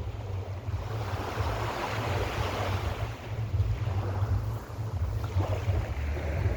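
Mediterranean sea waves breaking and washing up a beach, the rush of surf swelling twice, with wind rumbling on the microphone underneath.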